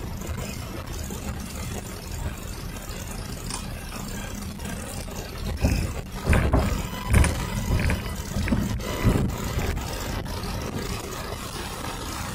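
Car cabin noise while driving: a steady low engine and road rumble. A run of louder thumps and rattles comes about halfway through.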